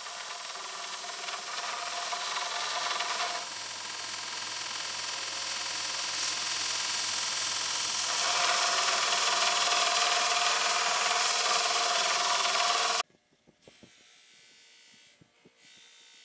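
Electric power tool grinding on steel, running steadily with shifts in its tone as the load changes, then cutting off suddenly about three seconds before the end; a few faint light taps follow.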